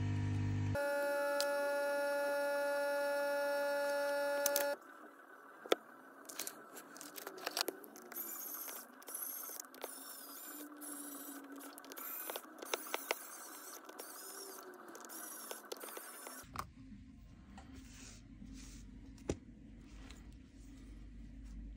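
A steady, loud tone of several held notes for about the first five seconds, then irregular small clicks, taps and scrapes of tools working on a smartphone's casing, with a low hum entering near the end.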